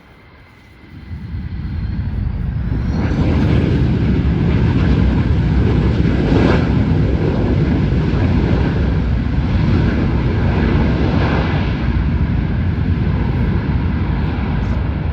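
An airliner's engines passing close: the sound swells quickly about a second in, then stays loud and steady.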